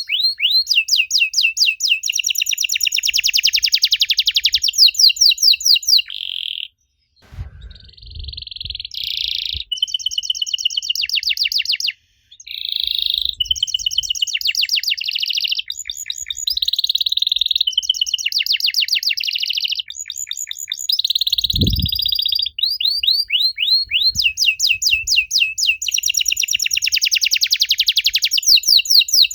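Domestic canary singing: fast trills and rolls of rapidly repeated high notes, broken by two short pauses, with a couple of soft low thumps.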